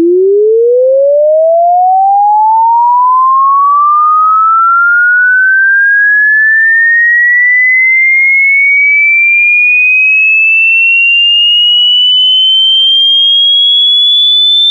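A single pure electronic sine tone sweeping steadily upward in pitch, from a low tone to a high whistle, rising quickly at first and then more slowly: a test-tone frequency sweep.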